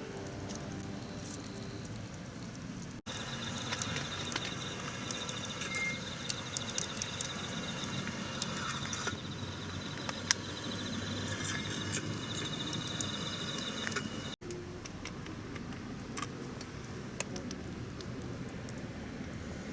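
Campfire crackling with scattered sharp pops, in three short shots. Through the middle shot a steady, high-pitched insect trill runs alongside.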